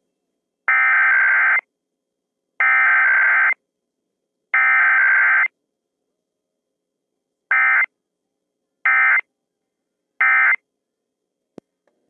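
Emergency Alert System SAME data bursts sending a Required Weekly Test: three bursts of rapid warbling digital tones about a second each (the coded header), then after a pause three short bursts (the end-of-message code). A faint click near the end.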